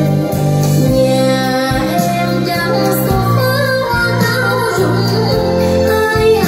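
A song with a female singer over sustained bass notes, played back through a pair of JBL TLX-16 three-way loudspeakers.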